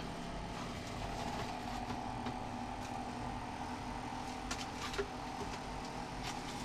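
A steady low mechanical hum like a running motor, with a few faint clicks and knocks of items being put into a drawer.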